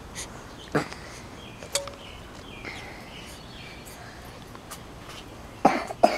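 A person coughing: a short cough about a second in, another soon after, and a louder pair of coughs close together near the end.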